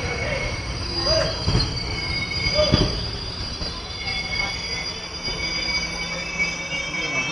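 Indian Railways passenger coach wheels and brakes squealing as the train slows to a stop at the platform: high whining tones come and go over the low rumble of the running gear. Two short knocks about a second and a half apart.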